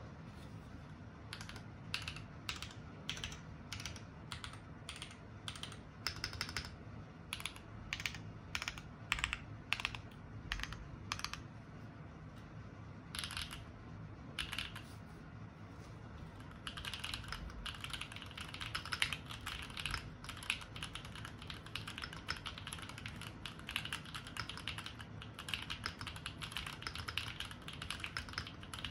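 Modded Keychron Q5 aluminium mechanical keyboard: single keystrokes, about two a second, for the first half, then fast continuous typing from about halfway through.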